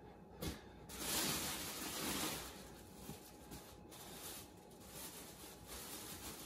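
Rustling handling noise as things are moved about by hand, with a soft knock about half a second in and the loudest rustle between about one and two and a half seconds in.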